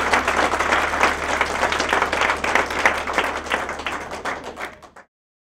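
A room audience applauding, the claps thinning and fading over a few seconds until the sound cuts off abruptly about five seconds in.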